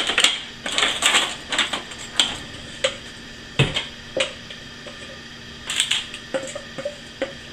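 Spatula scraping and knocking against a metal bowl as food is scraped out of it: a run of irregular clicks and scrapes, with one heavier knock about three and a half seconds in.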